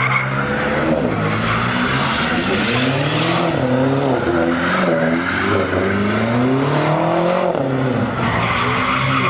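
A sedan doing donuts: its engine revs up and down again and again, and the spinning rear tyres screech and skid without a break.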